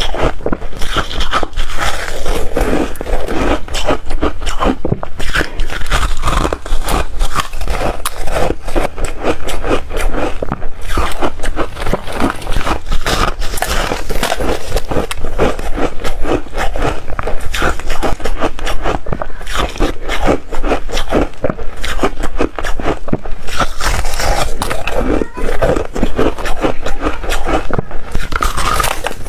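Close-miked chewing of soft re-shaved freezer ice: a dense, continuous run of crunching and crackling bites.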